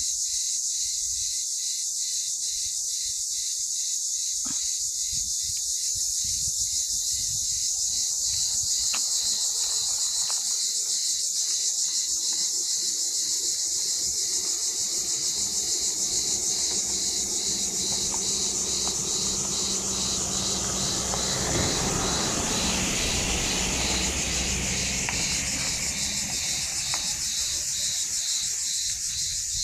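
Steady high-pitched chirring chorus of small animals, pulsing evenly about two to three times a second. A low rumble swells up past the middle and dies away near the end.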